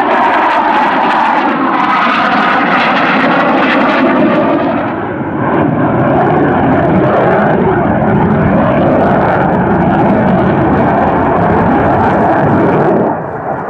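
Loud jet noise from a Eurofighter Typhoon's twin EJ200 turbofan engines as the fighter flies a display manoeuvre overhead. The sound dips briefly about five seconds in and falls away sharply near the end.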